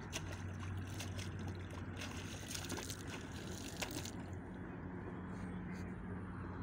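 Shallow river water splashing in quick, irregular bursts for about four seconds, then easing off, as a hooked rohu is hauled in on a hand line. A steady low hum runs underneath.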